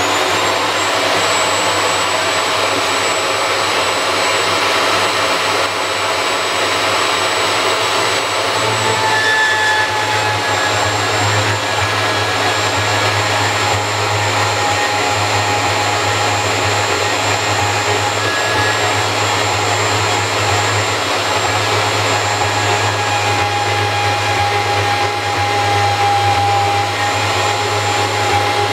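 An electric power tool's motor switched on, spinning up with a brief rising whine, then running steadily and loudly.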